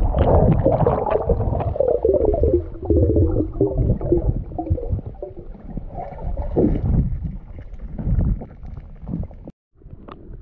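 Muffled underwater rushing and gurgling of moving water and bubbles, heard through a camera in its underwater housing, with many small clicks and knocks. It cuts out briefly near the end, then comes back quieter with a few clicks.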